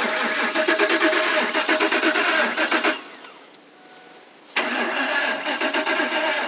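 2004 Lincoln Navigator's 5.4-litre V8 cranking on the starter with a steady pulsing rhythm, twice: about three seconds, a pause, then cranking again, without catching. A crank-no-start that the owner puts down to fuel, most likely a dead fuel pump.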